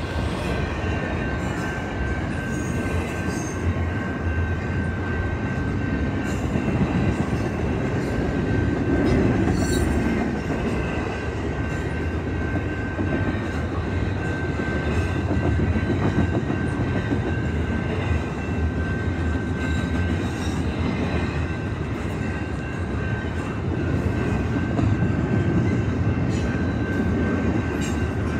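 Double-stack intermodal freight train's container well cars rolling past close by: a steady rumble of steel wheels on rail, with a thin high whine over it and the level swelling and easing a little as cars go by.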